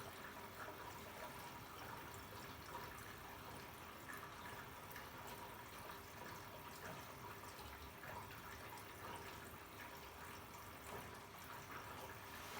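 Arçelik 3650 SJ washing machine taking in water during its fill stage: a faint, steady rush of water running into the drum.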